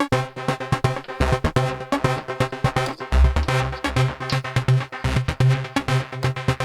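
Background electronic dance music with a fast, driving beat, synthesizer notes and a pulsing bass line.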